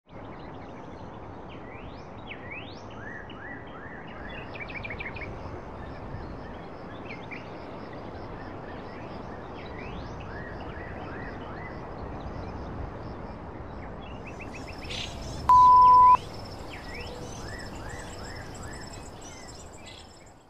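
Birds chirping over and over, short rising and falling calls over a steady background hiss of outdoor ambience. About fifteen seconds in, a loud high beep cuts in for just over half a second.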